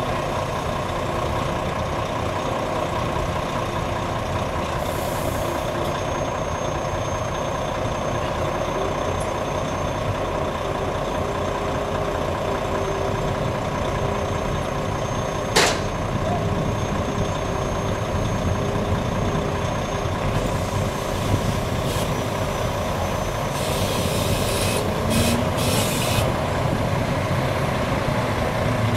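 Heavy diesel engine running steadily as a mobile crane lifts a rail ore car off a semi-trailer, with one sharp click about halfway and a few short hisses near the end.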